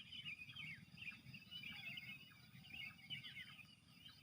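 Faint outdoor birdsong: many small birds chirping in quick, overlapping short calls, over a low steady rumble.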